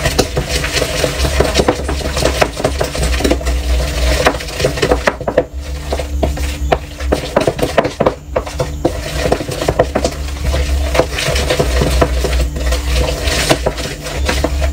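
Cake batter being beaten by hand with a wooden spoon in a large mixing bowl. The spoon keeps up a fast, continuous run of knocks and scrapes against the bowl.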